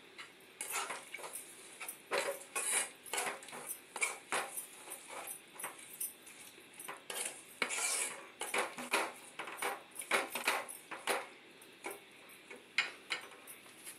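Steel spoon stirring a wet curry in a metal pan, clinking and scraping against the sides in quick, irregular strokes.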